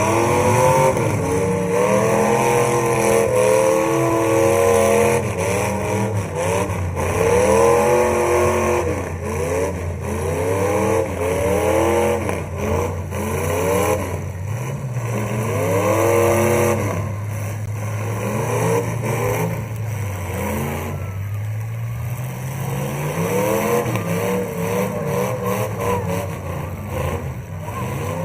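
Demolition derby cars' engines revving up and down over and over, several at once, with a steady engine drone underneath.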